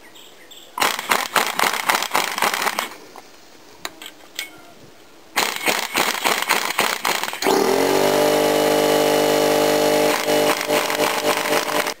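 Cordless impact wrench running on the threaded rods of a strut spring compressor to back it off. It hammers rapidly in two bursts, then about seven seconds in the motor spins up and runs steadily for about four seconds without hammering.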